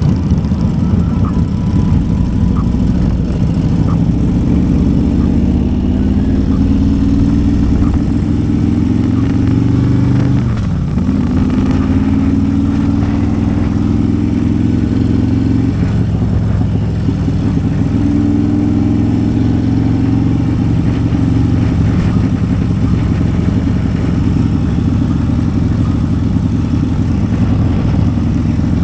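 Built 200-horsepower Harley-Davidson CVO Road Glide V-twin engine running while riding, its pitch rising as it accelerates and dropping sharply twice at gear changes, about ten and sixteen seconds in, then holding steady.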